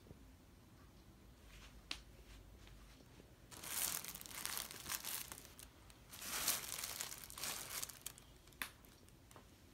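Plastic packaging crinkling in two spells of a couple of seconds each, starting about three and a half and six seconds in, with a few single sharp clicks around them.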